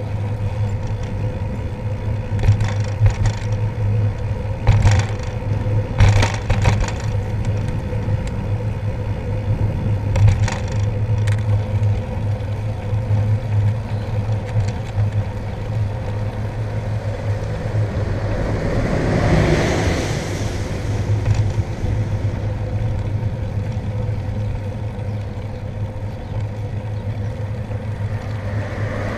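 Steady low wind and road rumble picked up by a camera on a moving bicycle, with a faint steady hum, several sharp knocks and rattles in the first dozen seconds, and a swell of rushing noise that rises and falls about two-thirds of the way through.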